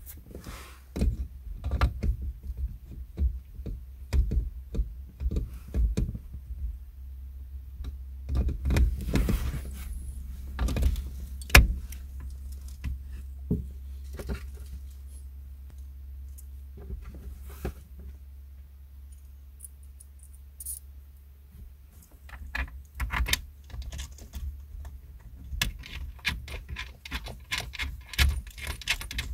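Irregular clicks, knocks and metallic clinks of a car-seat headrest mounting bracket and its small screw hardware being handled and fitted, with a quicker run of small clinks near the end, over a low steady rumble.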